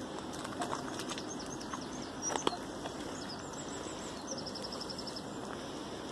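Small birds chirping, with a quick trill of about ten repeated high notes a little past the middle, over a steady background noise.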